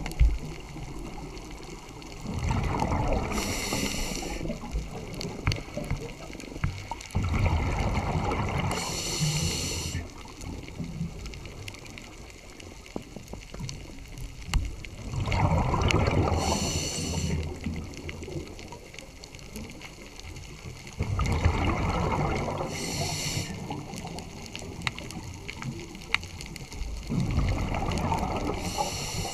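Scuba diver breathing through a regulator underwater. Each breath is about two seconds of bubbles rumbling and gurgling, ending in a short high hiss, and the cycle repeats about every six seconds, five times over.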